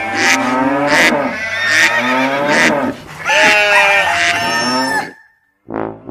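Recorded farm animal calls: long calls that bend in pitch, with short clicks about every 0.8 s beneath them. They stop about five seconds in, and a brass tune starts just before the end.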